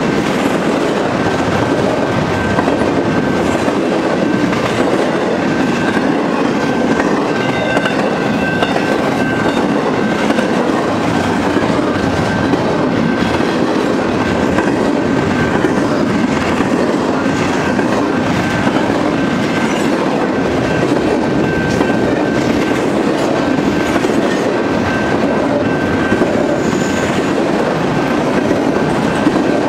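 Double-stack intermodal freight train's container well cars rolling past at speed: a steady rumble and clatter of steel wheels on rail, with a thin high ringing tone coming and going.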